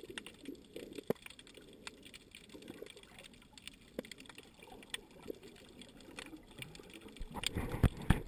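Underwater sound picked up by a submerged camera: a faint low wash of water with scattered sharp clicks and crackles. In the last second or so the water noise swells, with a few loud knocks.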